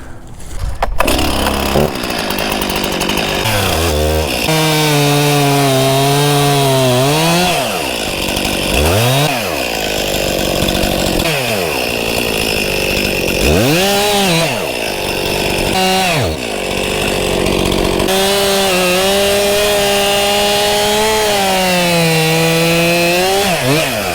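Stihl MS 261 two-stroke chainsaw cutting through holly wood at full throttle, its pitch sagging under load. The throttle drops briefly toward idle and revs back up four times in the middle of the cut.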